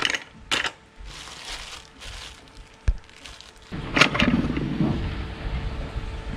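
Cardboard box and plastic packaging rustling as a GoPro waterproof housing is handled and lifted out, with a single sharp knock about three seconds in. About four seconds in the background changes to a steady low rumble.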